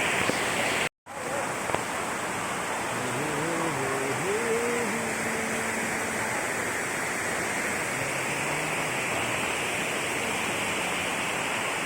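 Waterfall rushing: a steady, even roar of falling water. It cuts out for an instant about a second in.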